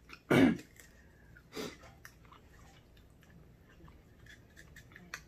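A single cough about half a second in and a shorter breath a second later, then faint scattered clicks of kitchen scissors snipping through king crab shell.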